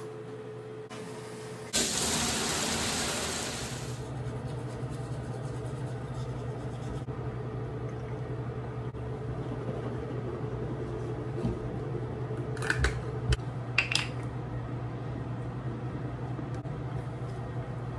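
Toilet flushing: a loud rush of water about two seconds in that cuts off after about two seconds. A steady low hum follows, with a few sharp clicks near the end.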